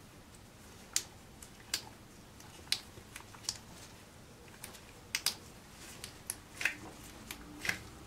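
Scattered sharp clicks, a dozen or so at an irregular pace, some in quick pairs, as a T15 Torx driver is worked on the screws of a Bosch 1617 router's housing, snugging them down by hand.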